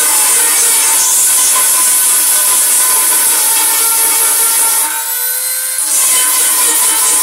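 A rotary tool on a flexible shaft grinding into the metal base plate of a percolator coffee maker, widening the holes for a new heating element's fittings. It makes a steady, high-pitched grinding whine. The grinding drops out for about a second, about five seconds in.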